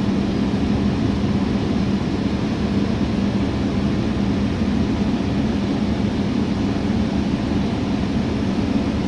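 Steady interior noise of a moving city bus: a constant engine hum over road rumble, heard from inside the cabin.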